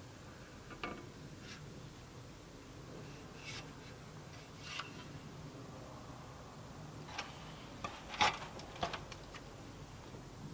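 Scattered light clicks, clinks and scrapes of a stainless steel stove pipe and tools being handled while it is fitted, with a louder cluster of knocks just after eight seconds.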